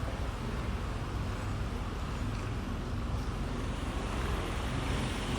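Steady outdoor background noise: a deep, unbroken rumble with an even hiss over it.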